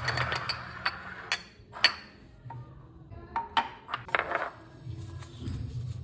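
Dishes and utensils clinking and clattering, a series of separate knocks and clanks, as a kitchen counter is cleared and ingredients are set out.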